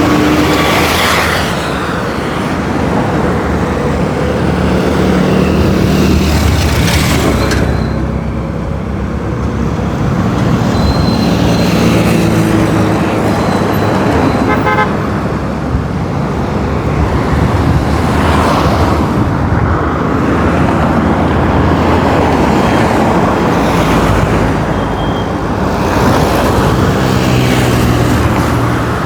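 Roadside traffic: a steady stream of cars and trucks, several passing close by and swelling in loudness, with occasional horn toots.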